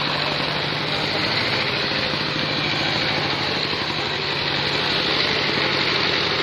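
An engine running steadily, a continuous drone with a constant low hum.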